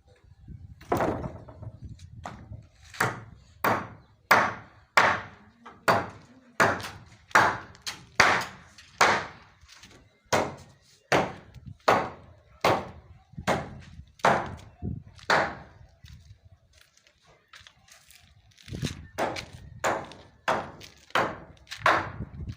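Hammer blows on timber roof rafters: a long run of sharp, evenly paced strikes, about one and a half a second, a pause of a couple of seconds, then a second shorter run.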